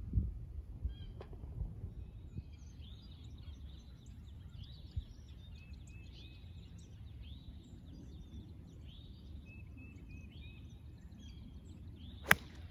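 A golf club striking the ball off the tee: one sharp crack near the end, the loudest sound. Before it, a bird calls over and over, short downward-sweeping calls about one a second, over a low steady rumble.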